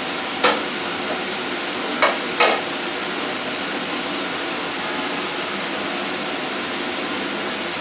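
Kitchen range hood exhaust fan and a high gas burner running with a steady rushing noise. One sharp knock about half a second in and two more close together about two seconds in.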